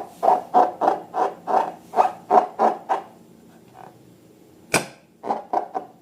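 Slime being squeezed and kneaded by hand, a regular squelching about three times a second that stops about halfway through. It is followed by one sharp click and a few softer squishes near the end.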